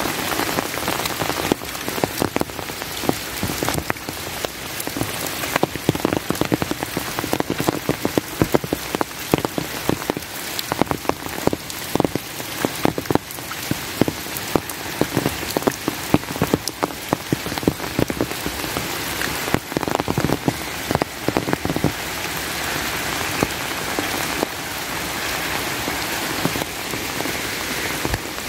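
Steady rain falling, with many separate sharp drop hits close to the microphone over an even hiss; the drop hits thin out over the last few seconds.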